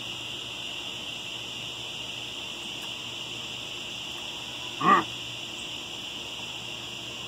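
Steady high-pitched chirring of insects in the evening air. About five seconds in comes one short, loud call that rises in pitch.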